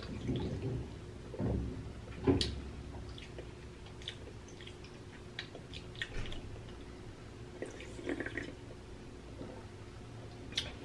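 A person sipping soda from a can: quiet slurps and swallows with small lip and mouth clicks, the loudest about two seconds in.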